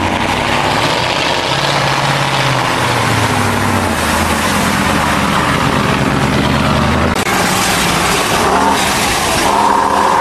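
Heavy trial trucks' diesel engines running hard under load as they plough through deep mud, the engine pitch stepping up and down as they rev. The sound changes about seven seconds in as a second truck takes over.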